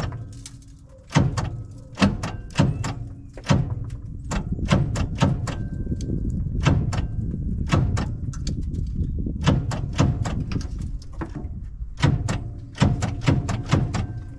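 Starter motor on the old GMC dump truck's 401 V6 engaged again and again against an engine that is stuck after years of sitting. Each try gives a sharp clunk, and through the middle stretch the starter grinds on with a steady low drone while the engine barely turns. The battery cables are warming from the load.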